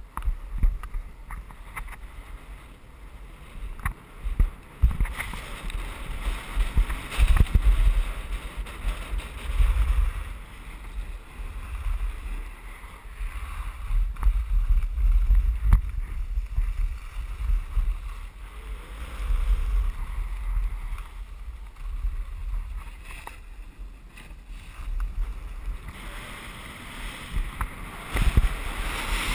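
Skis hissing and scraping over packed snow at downhill speed, with wind buffeting the microphone in uneven low gusts. The scraping swells and fades as the skier turns.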